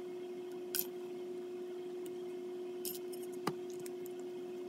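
Small metal gun parts and screws being handled during pistol disassembly: a couple of brief brushing scrapes and one sharp metallic click about three and a half seconds in, over a steady low hum.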